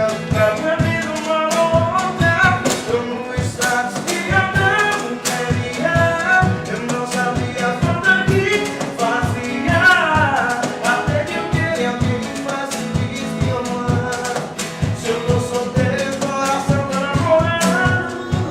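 Band music with a sung melody over a steady drum beat.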